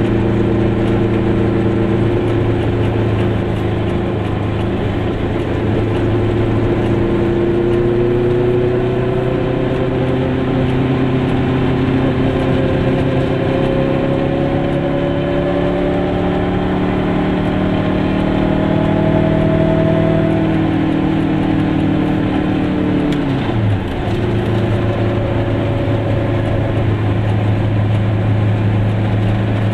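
Goggomobil's small two-stroke twin engine running under way, heard from inside the car. The engine note climbs slowly for most of the time, then drops sharply a few seconds from the end, with a brief dip in loudness, before running steady again.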